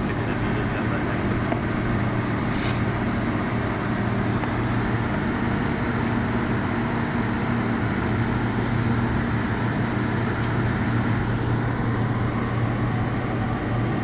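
Steady hum of a 4-ton air conditioner's outdoor condensing unit running, a constant low drone. A short hiss about three seconds in.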